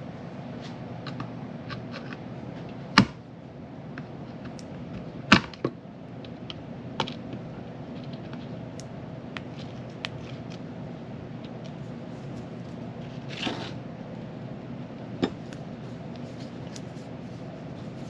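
Scattered sharp metal clicks and taps of needle-nose pliers against the pump's metal motor housing and rusted screw stubs, the loudest about three and five seconds in, with a brief rustle near the end of the second third. A steady low hum runs underneath.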